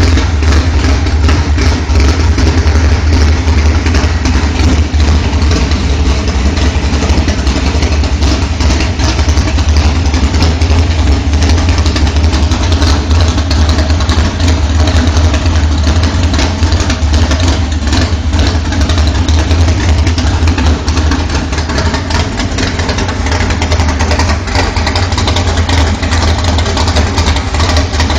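Built 388 cubic-inch small-block Chevy V8 running loud and steady at idle, with no revving.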